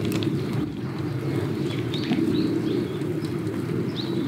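Forest ambience: a steady low rushing noise, with small birds chirping a few times in the background about halfway through and near the end.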